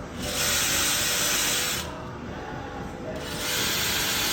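Power drill pre-drilling mounting holes, in two bursts of running and cutting, the second starting a little past the middle.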